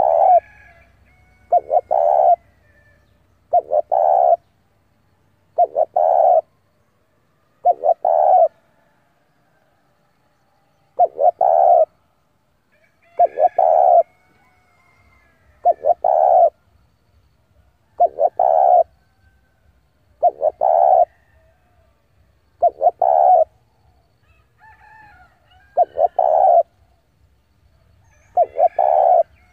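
Spotted dove cooing: one short phrase of a few coos about every two seconds, repeated steadily. This is the territorial call of a male kept as a decoy to draw in wild doves.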